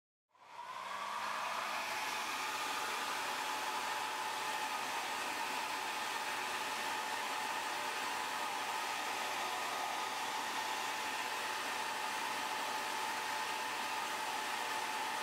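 Hair dryer running steadily, a rush of air with a faint steady whine, heating the phone's glass to soften the adhesive underneath. It comes in out of silence about half a second in.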